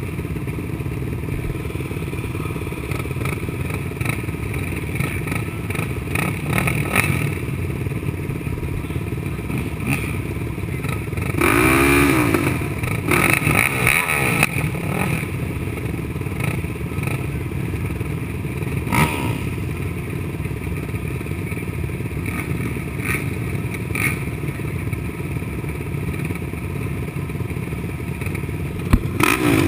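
A line of 450-class race quads idling on a motocross start line, engines running steadily. An engine revs up and down about twelve seconds in and again near the end.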